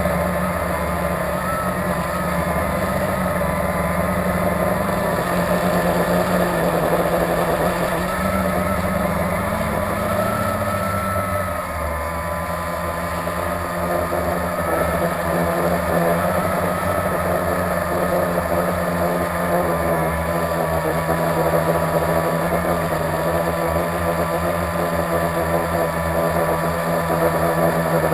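Blade 350QX quadcopter's four brushless motors and propellers buzzing steadily in flight, heard from the camera on board. The pitch rises briefly, then drops about twelve seconds in, as the motors change speed.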